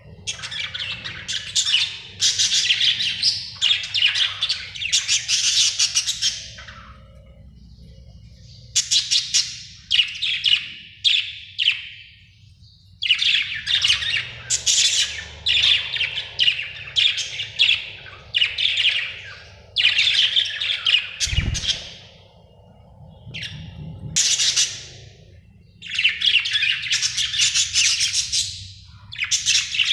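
Budgerigar chirping and warbling in fast runs of high chirps a few seconds long, broken by short pauses, with a brief low thud about two-thirds of the way through.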